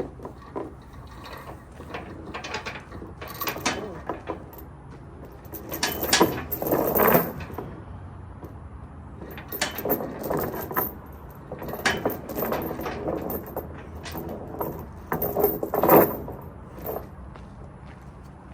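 Steel tie-down chain and ratchet chain binder being handled, with irregular metal clanks and rattles in bursts. The loudest bursts come about six to seven seconds in and again near sixteen seconds.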